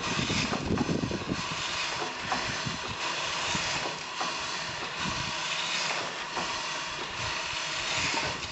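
Small steam engine hissing steam steadily as it is brought up to pressure, with louder, uneven puffing in the first second or so.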